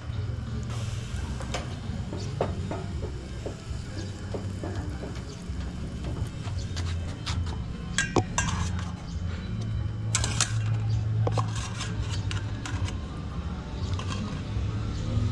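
Dishes and utensils clattering, with a few sharp ringing clinks about halfway through, over a steady low hum.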